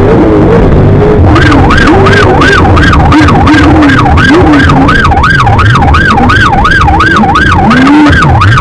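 A yelp siren wailing rapidly up and down, about three sweeps a second, starting about a second in, over an off-road race car's engine revving up and down. It is the warning siren desert race cars sound to get slower traffic to let them pass.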